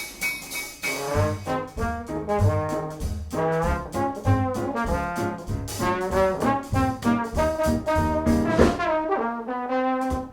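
Instrumental holiday music led by brass, trombones and trumpets, over a steady beat, with a bass line coming in about a second in.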